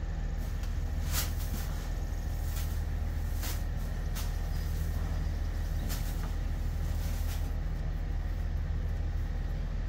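A steady low machine hum runs throughout, with a few short clicks and rustles as feed is scooped and mixed by hand among feed bags and a tote.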